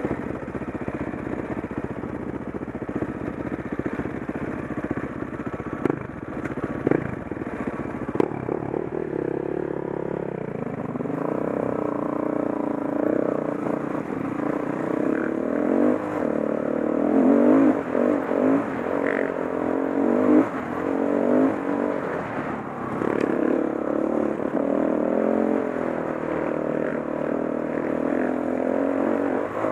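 Honda CRF450 dirt bike's single-cylinder four-stroke engine riding along a rough dirt track, the throttle opening and closing so the engine note rises and falls again and again. It is quieter for the first ten seconds or so, then louder with harder revs, with short knocks from the bike over the rough ground.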